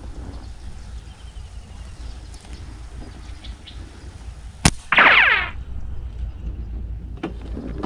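Slingshot shot: the drawn rubber bands are released with a sharp snap about two-thirds of the way in, followed at once by a loud half-second whizzing tone that falls in pitch as the shot flies off. A low rumble of wind and handling noise runs underneath.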